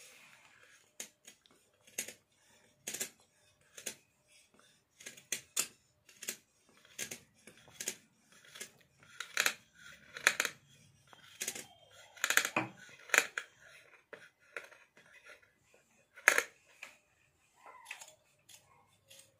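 Scissors snipping through several folded layers of net and cloth: a run of irregular sharp snips, about one or two a second, some louder than others.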